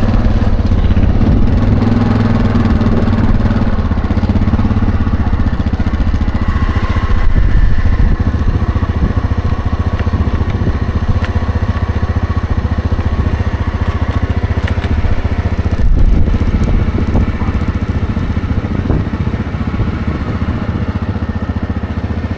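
ATV engine running under way while riding over rough grass, a steady low rumble that grows quieter toward the end.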